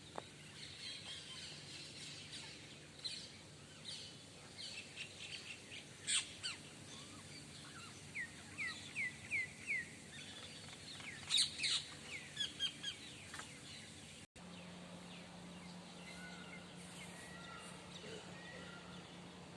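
Several small birds chirping and calling, with sharp high chirps and a run of five quick repeated notes about halfway through. After a brief dropout, a steady low hum sits under fainter chirps.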